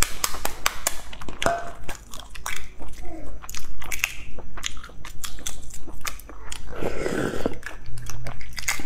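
Eggshell cracking and crackling as boiled eggs are peeled by hand: many small, sharp snaps, with a denser crunchy patch late on.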